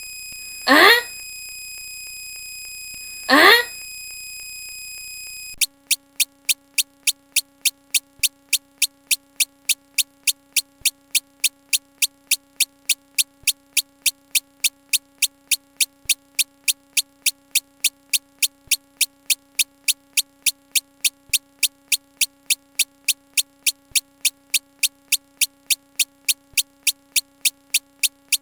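Synthesized electronic sound effects: a steady high tone cut by two quick upward sweeps, then, after about five and a half seconds, a steady low hum under rapid, even ticking, between two and three ticks a second, with a faint low thud every two and a half seconds or so.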